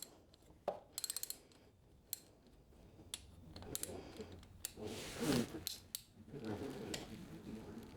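Hand ratchet wrench loosening an 8mm bolt on a motorcycle engine's air-injection plate: a quick run of about five ratchet clicks about a second in, a few single clicks, then softer scraping and handling of the tool against the engine.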